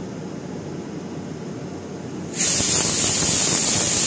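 Pressure cooker whistling: about two and a half seconds in, a sudden loud hiss of steam venting through the weight valve starts and runs on steadily. The cooker has come up to full pressure with the green peas inside.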